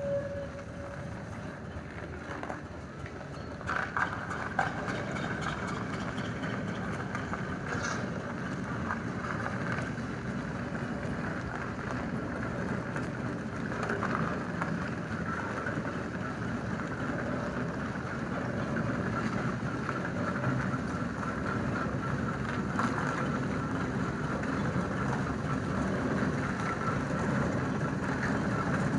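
Steam roller running as it drives off and passes close by: a steady mechanical rumble that grows louder as it approaches, with a few sharp clicks and a faint high hiss-like tone over it.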